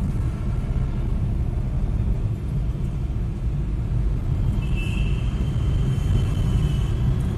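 Steady low rumble of a car's engine and tyres on the road, heard from inside the moving car. A thin high tone comes in about halfway through and lasts a couple of seconds.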